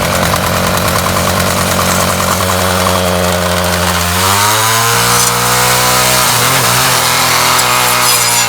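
Ryobi 31cc two-stroke string trimmer engine running steadily, its speed picking up about four seconds in and then holding.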